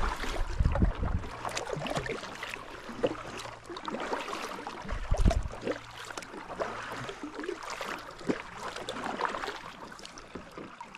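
Kayak paddle strokes in calm water: blades dipping, splashing and dripping, with two low rumbles near the start and about five seconds in.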